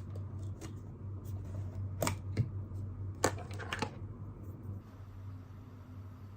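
Several light clicks and knocks of small objects being handled on a desk, most of them in the first four seconds, over a steady low hum.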